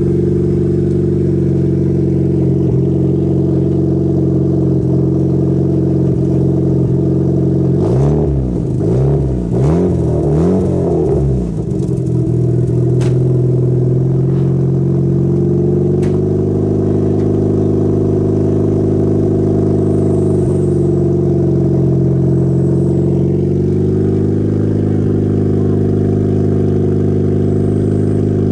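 Car engine idling through a dual-tip exhaust, heard close at the tailpipes. About eight seconds in it is revved in a quick run of several short blips, then settles back to a steady idle.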